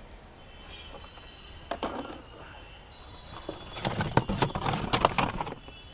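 Hands rummaging in a cardboard box: cardboard rustling with fibreglass body panels knocking and scraping inside it. A few faint knocks come first, then a busy run of clatter and rustle about two-thirds of the way through.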